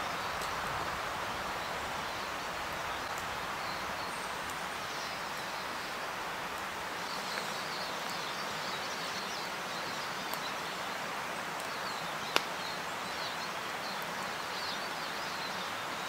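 Woodland ambience: a steady rushing hiss, with faint high bird chirps through the second half and a few sharp clicks, the loudest about twelve seconds in.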